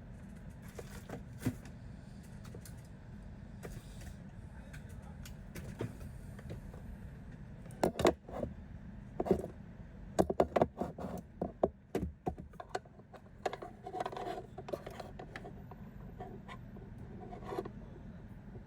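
Irregular clicks, taps and scrapes of small hard objects being handled, thickest in the middle stretch, over a steady low hum.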